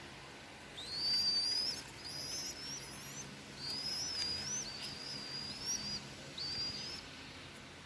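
A bird calling: a run of high, wavering whistled phrases, each about half a second to a second long with short gaps between, starting about a second in.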